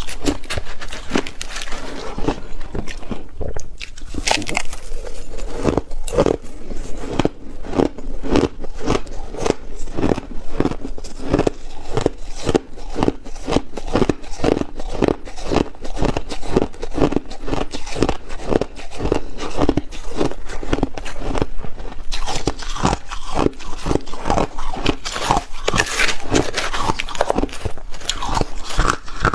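Ice being chewed, close up: a steady run of crunches at about two to three a second, with a few seconds of denser, crisper crackling about three-quarters of the way through.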